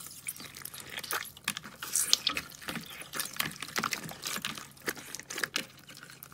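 Hands squeezing and kneading clear green slime with soft cubes mixed in, making wet squishing sounds with a dense, irregular run of small pops and crackles.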